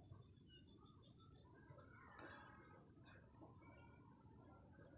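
Near silence, with a faint steady high-pitched insect chirring in the background and faint pen strokes on paper.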